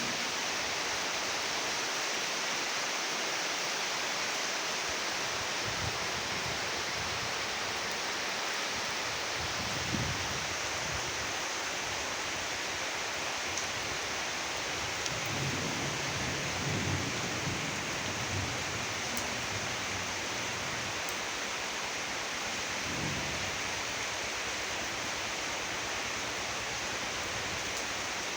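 Steady heavy rain, an even hiss, with a few brief low rumbles about a third of the way in, again a little past halfway, and once more near the end.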